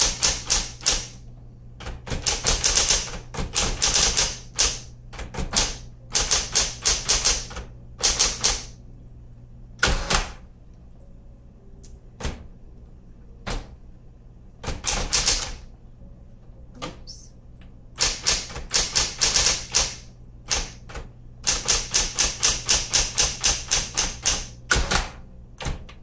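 Smith Corona Electra 220 electric typewriter being typed on: quick runs of keystrokes in bursts of a second or two, with short pauses and a few single strokes, over a steady low hum.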